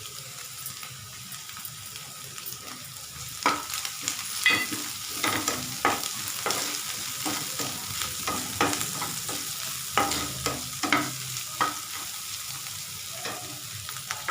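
A spoon stirring and mixing a thick batter in a bowl, with irregular clicks and knocks of the spoon against the bowl that start about three and a half seconds in.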